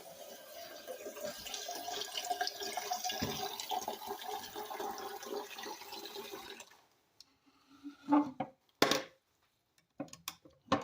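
Water running from a kitchen tap with something rinsed under it, shut off about six and a half seconds in; then a few short knocks as things are handled.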